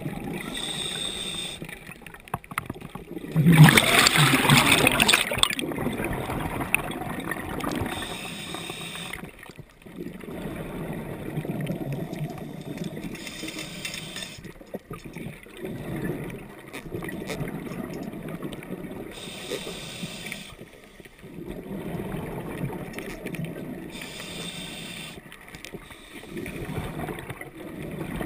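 Scuba breathing heard underwater: a short regulator hiss on each breath about every five to six seconds, with gurgling exhaled bubbles between. A louder rush of bubbles comes about four seconds in.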